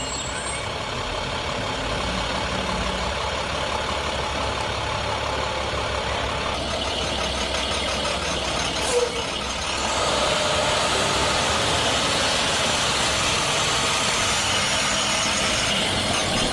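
Engine of a large vehicle idling steadily, growing a little louder about ten seconds in.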